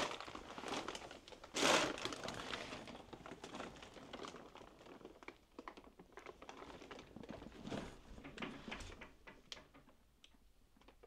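Footsteps crunching and shuffling over a debris-strewn floor, with plastic sheeting crinkling underfoot in irregular crackles and small knocks. A louder rustle of plastic about two seconds in.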